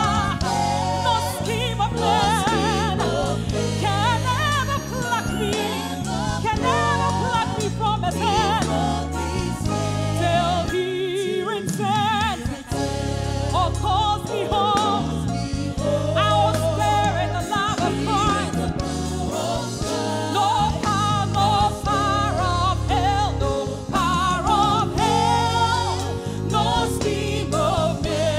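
Live gospel worship song: several singers on microphones singing with vibrato over a band with a steady bass line.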